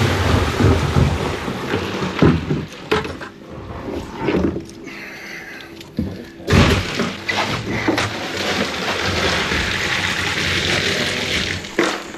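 Knocks and thumps on a boat deck over a steady low hum. About six and a half seconds in, a steady rush and slosh of water starts and runs almost to the end.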